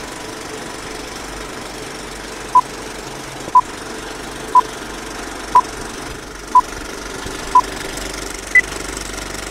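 Film-leader countdown effect: a steady film projector clatter with film crackle, and short beeps once a second, six at one pitch and then a final higher beep.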